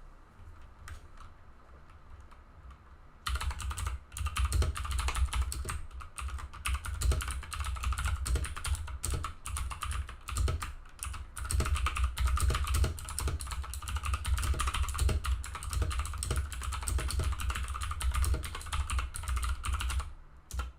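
Fast, continuous typing on a Scorpion/Marvo KG901 mechanical keyboard with clicky blue switches. It starts about three seconds in after a few faint clicks and stops shortly before the end.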